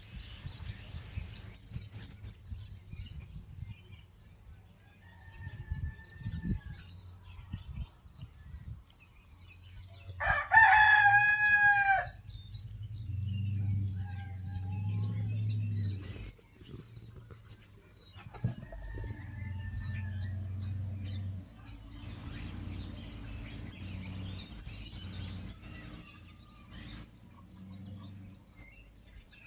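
A rooster crows once, loudly, about ten seconds in, with faint chirps of small birds before and after. A low rumble comes and goes through the second half.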